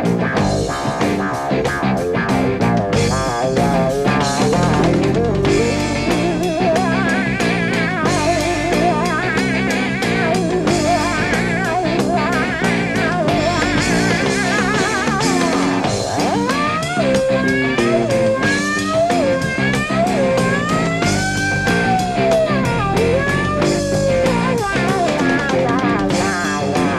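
Live instrumental hard rock from a band, electric guitar and drum kit at a steady beat. About halfway through, a lead line of sliding, bending notes comes in over it.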